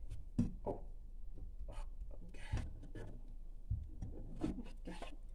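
Wire whisk scraping and pushing thick croquette dough around a nonstick frying pan, in short irregular strokes with the odd light knock against the pan.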